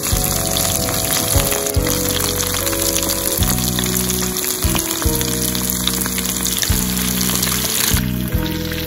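Fish pieces deep-frying in hot oil in a mess tin, a continuous sizzle, with background music over it.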